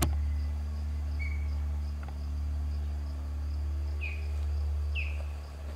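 Night insect chorus of crickets: a steady, pulsing high trill. A few short falling chirps come near the end, over a steady low rumble, with a sharp click at the very start.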